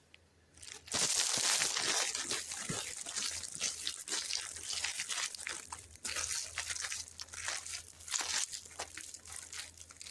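Crinkling and rustling of a sweet's plastic wrapper being handled, a dense run of crackles that starts about a second in and carries on with small pauses.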